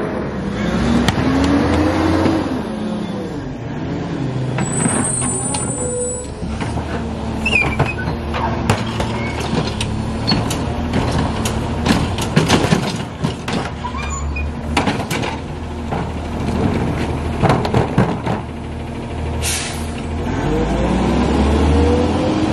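Lodal EVO garbage truck's engine running, its pitch rising and falling near the start and again near the end. Through the middle come many sharp knocks and bangs, and a short air-brake hiss sounds near the end.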